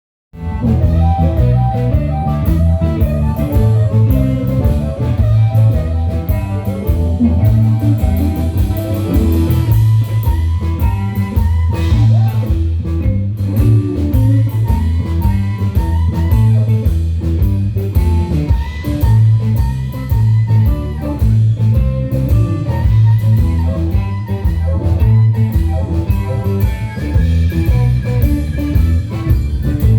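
Electric blues band playing live: an instrumental blues passage with guitar over a steady drum beat and bass line.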